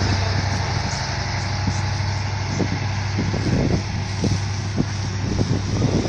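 Trolleybus moving slowly through deep snow: a steady low hum over an even hiss of noise, with scattered short bumps.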